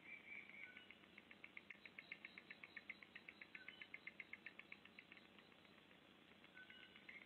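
High-pitched chirping: a short drawn-out note, then a fast even run of short chirps, about seven a second, lasting around four seconds, then the drawn-out note again near the end.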